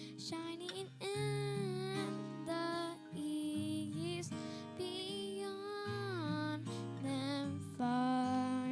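Music: a slow, gentle song with sustained, gliding sung or melodic notes over strummed acoustic guitar.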